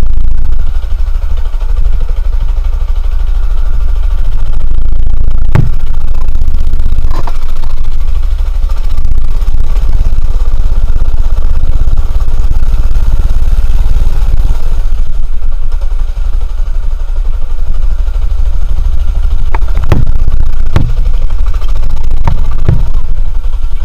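Homemade mini buggy's small engine running while driven over rough ground, the tube frame knocking and rattling over bumps, with a few sharp knocks, one cluster near the end.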